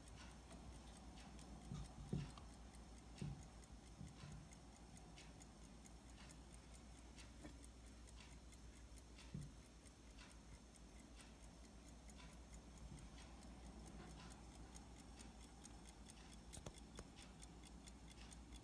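Faint, rapid ticking of an 18-size Waltham Model 1879 P.S. Bartlett pocket watch running, its balance freshly fitted with a new riveted balance staff. A few soft low knocks come about two, three and nine seconds in.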